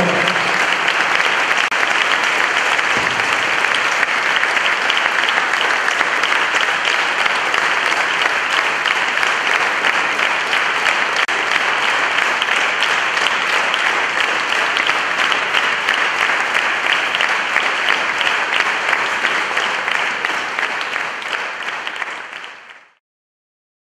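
Large audience applauding steadily, with dense, even clapping that fades out near the end.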